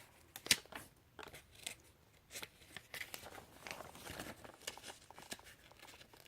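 Paper rustling and crinkling as a Lego instruction booklet is handled and its pages turned, with a sharp click about half a second in.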